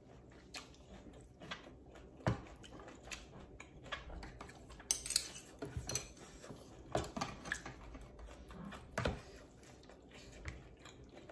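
Irregular clicks and taps of a metal spoon and chopsticks stirring and scraping through noodle soup in a plastic tub, with a short hissing sound about five seconds in.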